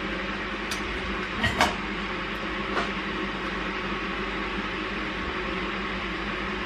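Steady background hum with a few sharp light clicks in the first three seconds, the loudest a quick pair, from a metal spoon knocking against a small tin.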